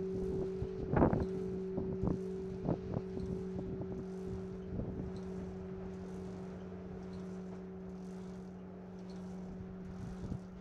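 A large bronze church bell's hum ringing on steadily and slowly dying away after being struck. Over it come a few short knocks, the loudest about a second in.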